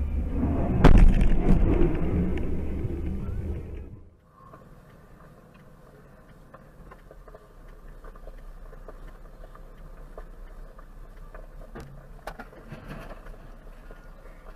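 Loud road and engine rumble picked up by a dashcam in a moving car, with one sharp loud knock about a second in. At about four seconds it cuts off to much quieter, steady in-car road noise, with a few faint knocks near the end.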